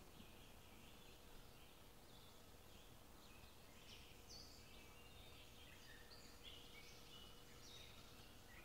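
Faint birdsong: several small birds chirping and trilling in short, overlapping notes over a soft, steady background hiss.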